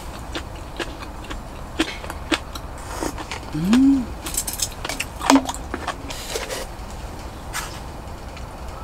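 Someone eating soup from a small metal bowl: metal utensils clink and tap against the bowl in scattered light clicks. A short rising hummed 'mm' comes about three and a half seconds in, and it is the loudest sound.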